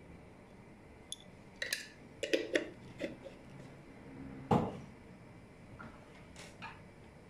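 A spoon clinks and knocks against a cooking pot in a series of separate taps. The loudest is a heavier knock about halfway through.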